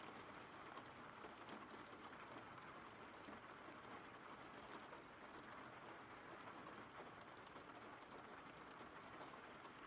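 Faint, steady rain: an even hiss of falling rain.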